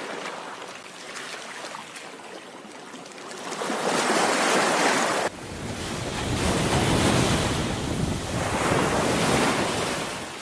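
Sea waves breaking and washing among shore rocks, the surf swelling and ebbing in slow surges; about five seconds in the sound cuts off abruptly and picks up again with the next surge.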